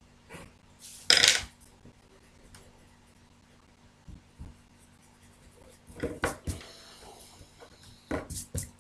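Pencil and drawing instruments on paper: a pencil ruled along a plastic set square, with the instruments shifted and set down on the drawing board. A loud, short scrape about a second in, two small clicks around four seconds, then more rubbing and knocks near six seconds and again near the end.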